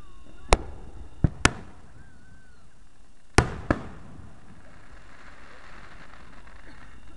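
Fireworks going off: five sharp bangs at uneven intervals, two close pairs in the first four seconds.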